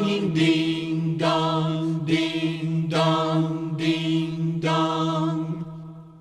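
A choir with orchestra sings the closing bars of a Christmas song over a held low note, with a fresh accent about every second. The final chord dies away near the end.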